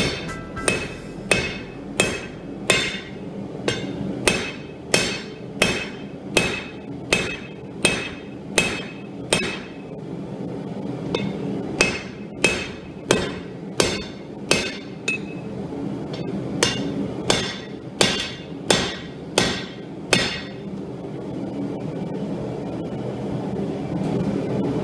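Hand hammer striking steel on an anvil in steady runs of about one and a half blows a second, each blow ringing, with short breaks about 10 and 16 seconds in. The hammering stops about 20 seconds in, leaving a steady background rush.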